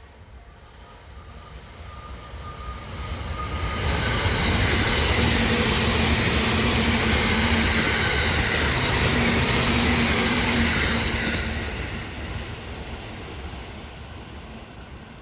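JR East E353 series electric limited-express train passing at speed. It grows louder over the first four seconds, runs loud for about seven seconds as the cars go by with a steady motor hum under the wheel and rail noise, then fades as it moves away.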